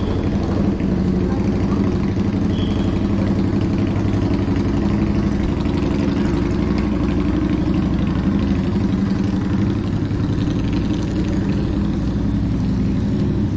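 A motor vehicle's engine idling close by: a steady low hum over city street noise.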